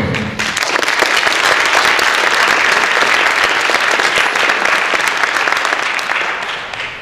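Audience applauding, building up in the first second, holding steady, then dying away near the end.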